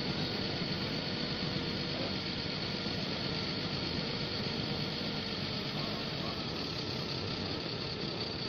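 Forklift engine running steadily at low revs while the forklift creeps forward carrying a heavy mixer machine.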